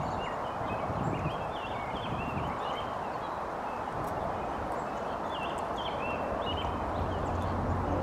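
Many small songbirds chirping in short, overlapping notes over a steady rushing background noise.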